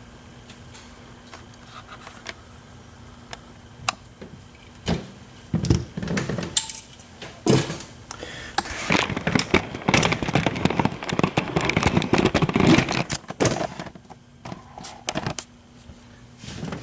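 Small metal tools and a lock cylinder being handled: a few scattered clicks, then a spell of dense clicking and clattering that dies down near the end.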